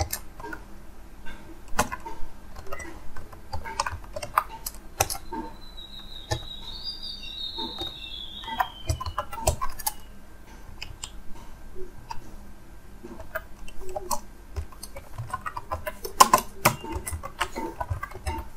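Typing on a computer keyboard: irregular key clicks in short runs with brief pauses. A thin, high whistle falls slowly in pitch about halfway through.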